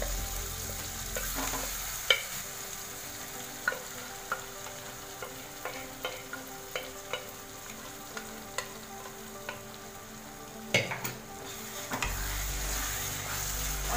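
Saag sizzling as it fries in a steel kadhai of ghee-fried tomato-onion masala, stirred with a wooden spatula. Scattered sharp clicks of the spatula against the pan, with a louder clatter of several knocks about eleven seconds in.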